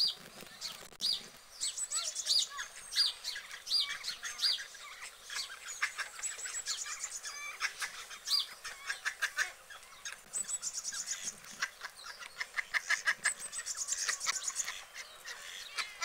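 Small birds chirping and twittering: quick runs of short, high notes, repeated again and again.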